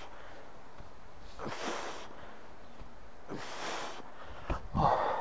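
A man's heavy breathing under exertion: a hard exhale about every two seconds, one with each rep of a heavy kettlebell suitcase deadlift. Near the end comes a short knock, then the loudest exhale.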